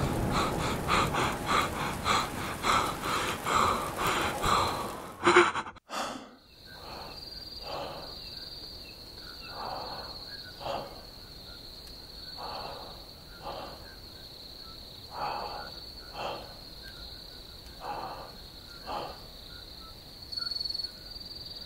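Fast, loud rhythmic pulsing that ends about five seconds in with a sudden loud burst and a brief cut to silence. Then crickets chirr steadily while a person breathes heavily, in and out every couple of seconds.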